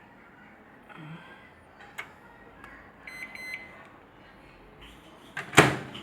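Avanti microwave oven giving a brief electronic beep, with a sharp click before it and a loud knock near the end.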